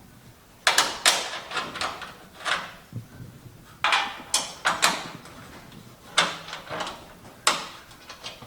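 Irregular bursts of knocking and scraping from fender parts and hardware being handled and fitted, in two clusters and then two single knocks near the end.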